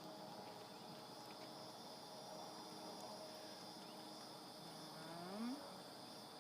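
Faint, steady chorus of insects such as crickets, a constant high shrill. About five seconds in, a short rising voice-like call stands out.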